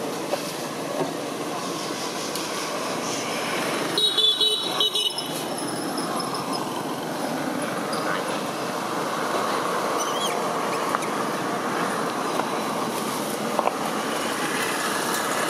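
Steady outdoor background noise of vehicle engines and traffic, with a short, loud, high-pitched sound about four seconds in.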